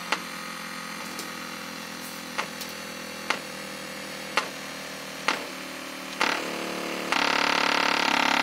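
A pair of 4GD-35-62 low-frequency loudspeakers buzzing as their cones flap under a low-frequency test tone. Sharp clicks come roughly once a second. A little after 7 seconds the buzz turns abruptly louder and rougher.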